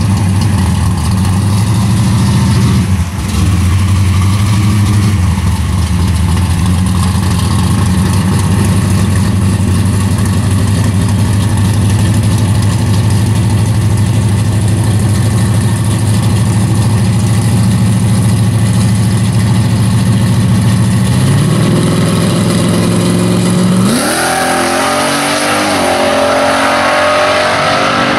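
Dodge Challenger drag car's engine idling steadily at the starting line, brought up a little in revs a few seconds before launch, then launching about 24 seconds in, its pitch climbing in steps as it accelerates away down the strip.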